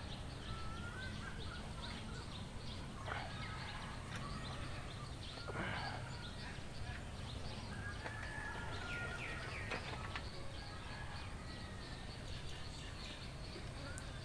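Birds chirping and calling again and again, short chirps with a few brief rising glides, over a low steady background rumble.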